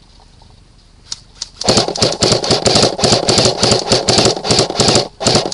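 Airsoft AK-style rifle firing rapid full-auto bursts close by, a fast string of sharp clacking shots that starts about a second and a half in, with a short pause near the end before firing again.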